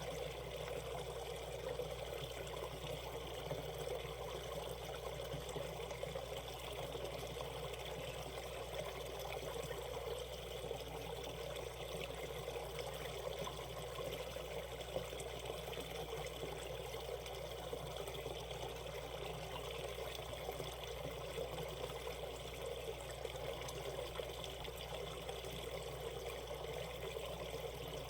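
Valley stream water flowing in a steady, continuous rush.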